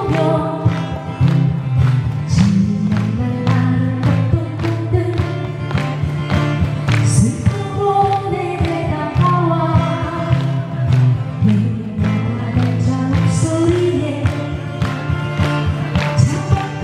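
Korean pop song playing, with a steady drum beat of about two strokes a second under a gliding melody line.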